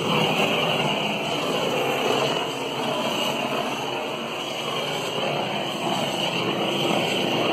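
Handheld gas blowtorch on a small canister burning with a steady hiss as its flame is swept over wet epoxy resin.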